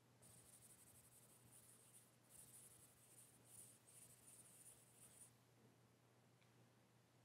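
Faint, high scratchy strokes like a drawing tool dragged across a surface, several in a row, stopping about five seconds in.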